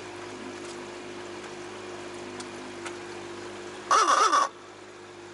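A single loud caw-like call lasting about half a second, about four seconds in, over the steady hum of the boat moving across the water.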